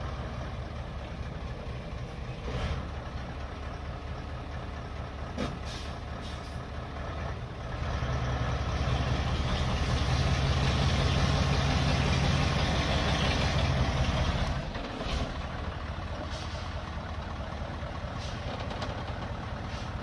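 Mitsubishi Fuso heavy truck's diesel engine pulling a full load of logs over a dirt track. It runs steadily, grows louder about eight seconds in, holds for about six seconds, then drops back.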